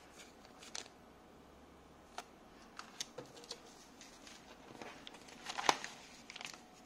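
Plastic packaging bags being handled: scattered light crinkles and clicks, with a louder burst of crinkling rustle near the end.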